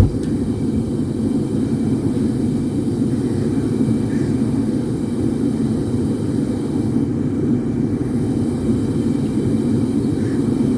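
A blacksmith's forge switched on, starting suddenly with a sharp click and then running with a steady, even rushing noise, as the fire is brought up to heat.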